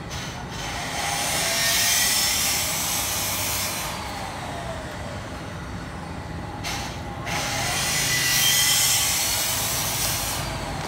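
Street traffic: two loud rushing swells, each about three seconds long, as vehicles pass, with a steadier street hum between them.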